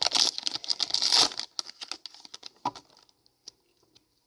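A foil Pokémon booster pack wrapper being torn open and crinkled for about a second and a half, then a few light rustles and ticks that fade out.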